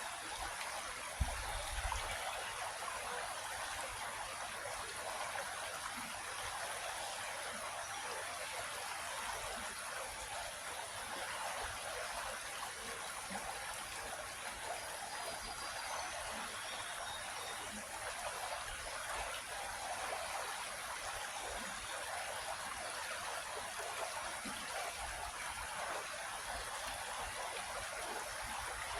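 A creek flowing, a steady rushing and trickling of water.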